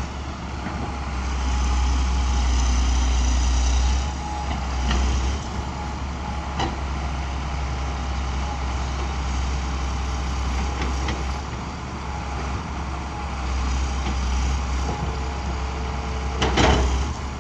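John Deere 330LC excavator running and working its hydraulics at a distance, a steady diesel rumble with a constant whine. A few sharp knocks come through, and there is a louder clatter about a second before the end.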